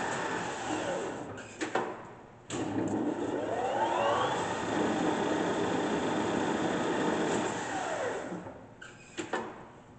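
Cazeneuve HB 575 geared-head engine lathe running under power. The machine noise drops away with a couple of clicks about a second and a half in. It comes back with a sharp clunk and a gear whine that rises in pitch as it comes up to speed, then runs steady. Near the end it winds down in falling pitch, with a few clicks as it stops.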